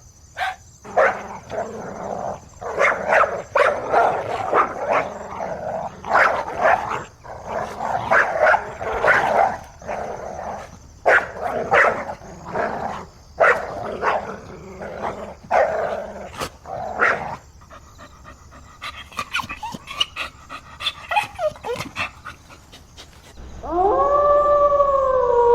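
A dog barking firmly and loudly in a steady run of barks about once a second, the kind of bark given as a danger alert. The barking gives way to a few fainter short yips, and near the end a long howl starts, rising in pitch and then holding.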